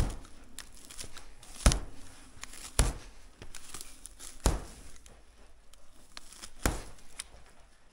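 Dry hay rustling and crackling as gloved hands pull the baling twine out of a square hay bale, with four sharp, louder jerks spread through it.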